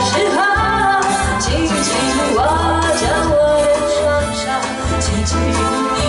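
A woman singing a song into a handheld microphone, backed by a live band with bass and drums through the stage sound system.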